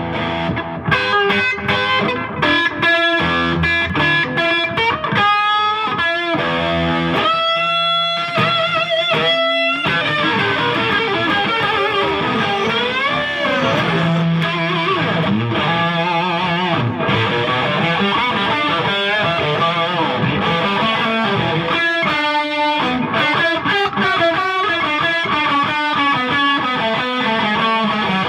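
Electric guitar played on a sunburst single-cutaway solid-body. It runs through a busy jam of picked notes and chords, and from about ten seconds in there are lead lines with notes that bend and waver in pitch.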